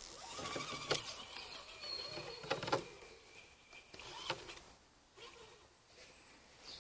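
Axial Honcho RC crawler's small electric motor and geartrain whining faintly, the pitch rising and falling with the throttle as the truck climbs over a mossy stump, with a few sharp knocks from the tyres and suspension.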